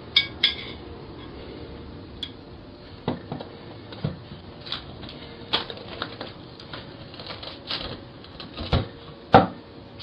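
A dozen or so sharp clicks and knocks at irregular intervals, close to a doorbell camera's microphone, as a man handles the apartment's front door. The loudest come at the very start and about nine seconds in.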